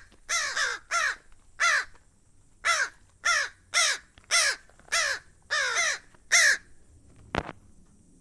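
American crows cawing, about ten harsh caws roughly twice a second with a short pause after the first three. Near the end there is a single sharp knock.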